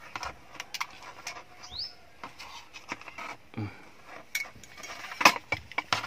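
Metal clicks and knocks from a car seat-belt retractor being taken apart by hand, its steel housing plates knocking together, with the loudest knock about five seconds in. A bird gives one short rising chirp about two seconds in.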